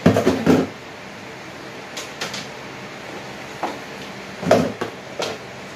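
Kitchen handling clatter: a cluster of knocks and bumps at the start, a couple of light clicks about two seconds in, and more knocks around four to five seconds in, from containers and a pot being handled while cut kamansi is put in to cook.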